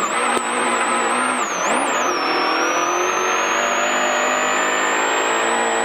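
Rally car engine at full throttle along a long straight, heard from inside the cabin: the engine pitch dips briefly about two seconds in, then climbs steadily.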